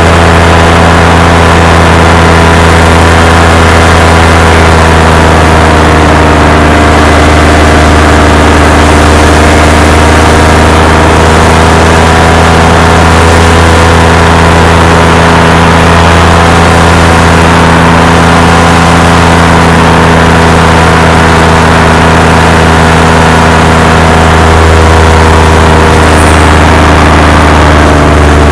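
Paramotor engine and propeller running steadily in flight, heard loud and close from the pilot's harness; the engine note drops slightly near the end.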